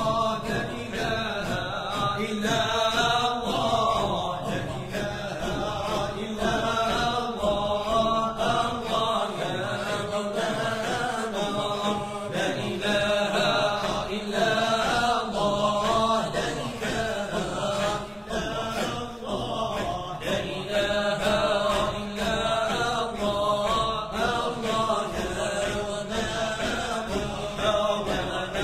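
Moroccan Sufi group of men's voices chanting dhikr together in repeating phrases over a steady held low note.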